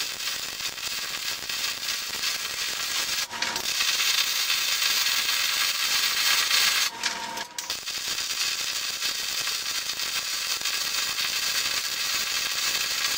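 MIG welding arc on steel square tube, with shielding gas: a steady crackling hiss as the bead is laid. The arc stops briefly twice, about three and a half and seven seconds in, then strikes again.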